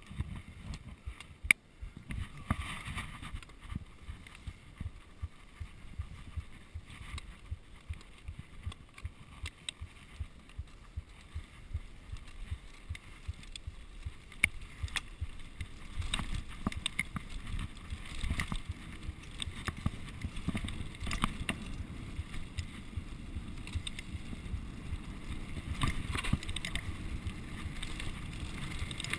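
Mountain bike riding over a dirt trail: wind rumbling on the microphone with a running clatter of clicks and knocks as the bike rattles over bumps, louder from about halfway through.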